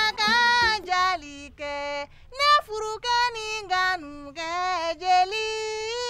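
A woman singing a solo melody, without accompaniment, in phrases of long held notes that waver slightly, broken by short breaths.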